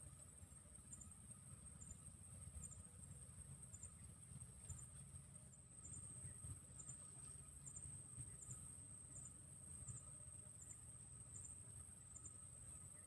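Faint steady high-pitched trill of insects such as crickets, with a short soft chirp repeating at an even pace, over a low rumble of background noise.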